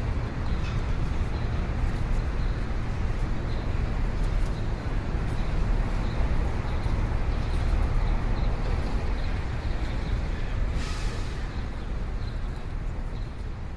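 Car creeping along slowly, heard from inside the cabin: a steady low engine and road rumble, with a brief hiss about eleven seconds in.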